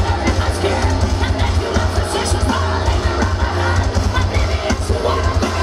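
Heavy metal band playing live at full volume: distorted guitars and drums, with yelled and sung vocals.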